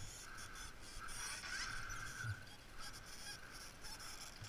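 ATV engine running faintly, a steady mid-pitched drone.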